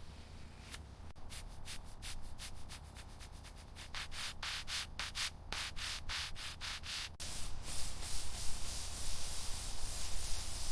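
Rapid abrasive rubbing strokes on a surface, like hand sanding or scrubbing, about three a second. About seven seconds in they give way to a steady hiss.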